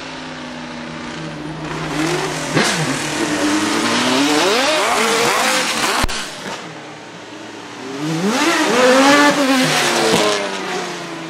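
Maserati MC12 Corsa's 6.0-litre V12 racing engine accelerating hard past, its pitch repeatedly climbing and dropping as it revs. It goes by twice, loudest about four seconds in and again about nine seconds in.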